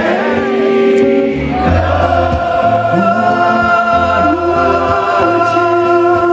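Concert audience singing a ballad chorus together, many voices holding long notes over the band's accompaniment.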